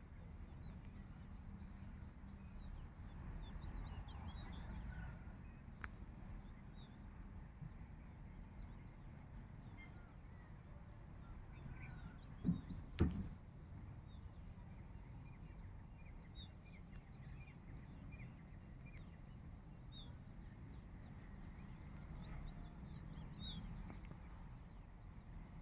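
Small birds chirping and trilling again and again, faint over a steady low outdoor rumble. A couple of brief thumps about twelve to thirteen seconds in.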